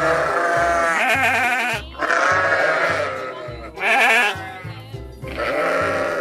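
Sheep bleating, four wavering calls in a row, over children's music with a steady beat.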